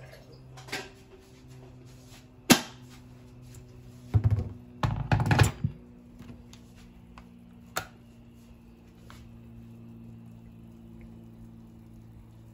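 Phone camera being handled and carried about in a kitchen, with a sharp click about two and a half seconds in, a cluster of loud knocks and bumps a second or two later, and a smaller click near eight seconds, over a steady low hum.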